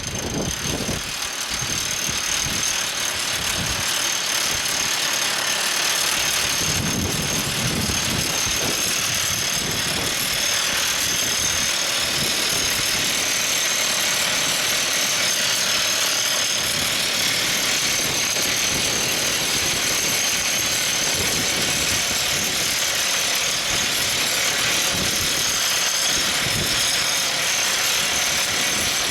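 Everdigm ECD45E top hammer drill rig at work: the rock drill's rapid hammering and the rig's engine merge into a steady, loud din with a high whine above it.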